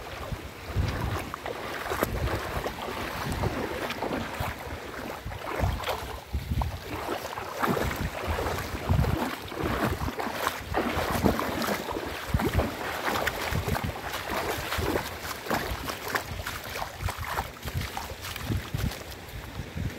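Wind buffeting the microphone in gusts, with irregular splashing steps wading through shallow water.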